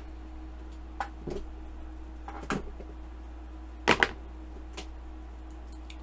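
Scattered sharp clicks and taps from small hand tools such as cutters or pliers being worked at a workbench, the loudest a quick double click about four seconds in, over a steady low hum.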